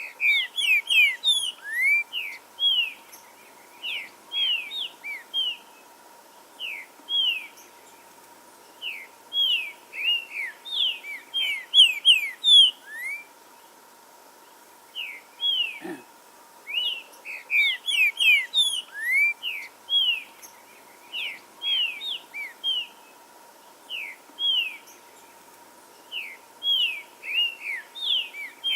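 Green-winged saltator (trinca-ferro) singing: phrases of short, clear whistled notes sliding up and down, coming in bursts with short pauses between them.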